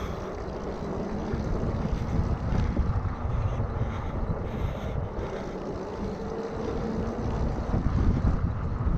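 Wind buffeting the microphone of a recumbent trike riding along an asphalt road, mixed with the rolling noise of its knobby fat tyres. A faint steady hum comes in for a few seconds midway.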